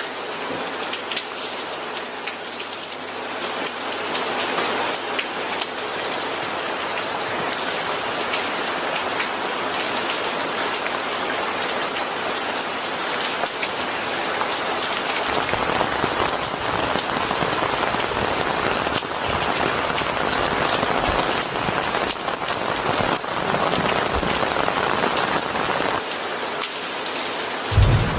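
Steady rain falling and pattering on a surface, dense with individual drops, turning heavier and fuller about halfway through. A low rumble of thunder begins at the very end.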